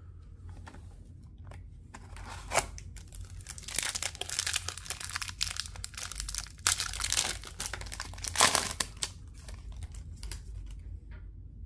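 The wrapper of a 2020-21 O-Pee-Chee Platinum hockey card pack being crinkled and torn open, in uneven bursts of rustling through the middle, then a softer shuffle of the cards being handled.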